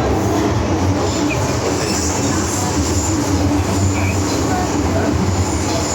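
MTR M-Train electric multiple unit running, heard from inside the car: a steady rumble of wheels on rail with a low hum and faint squealing from the wheels.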